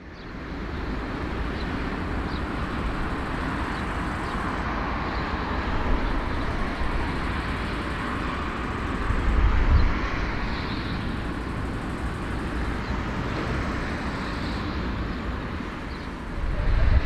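Steady aircraft engine noise with a heavy low rumble, swelling briefly about ten seconds in.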